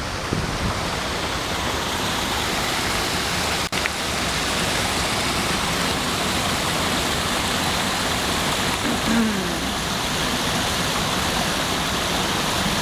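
Small cascading garden waterfall splashing steadily, water falling and running into a pond.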